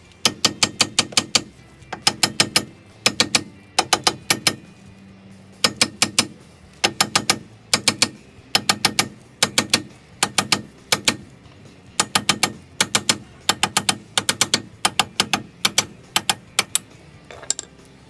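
Ratchet wrench clicking in short runs of several quick clicks, run after run with brief pauses, as it is swung back and forth to loosen a bolt.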